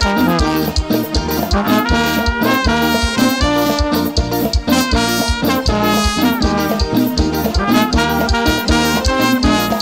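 Lambadão dance music played by a live band: a fast, even beat with a bright melody line over it.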